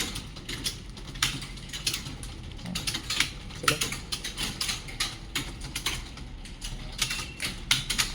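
Many computer keyboards clattering at once, with fast, irregular key clicks overlapping as a room full of students type a timed speed test.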